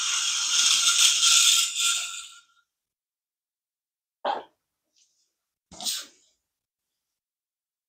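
Small solar toy robot's motor and plastic gearbox whirring loudly close by, with a steady whine, for about two and a half seconds before dying away. Two short knocks follow, about a second and a half apart.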